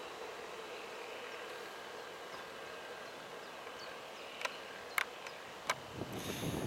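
Faint steady outdoor background with a light hum. Past the middle come three sharp clicks, less than a second apart, then low thumps and rumbling as the camera is handled and moved.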